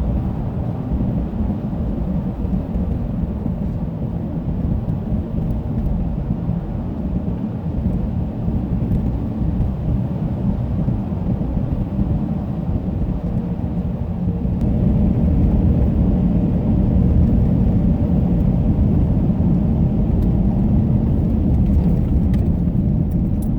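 Car driving on a snow-covered road on studded tires, heard from inside the cabin: a steady low rumble of tires and engine that gets louder a little past halfway through.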